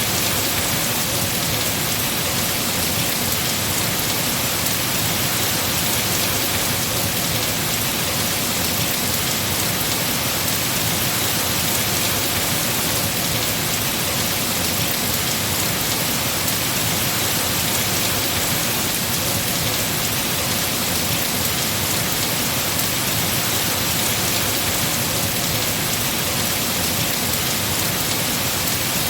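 Heavy rain falling on trees: a steady, dense hiss with no break or change.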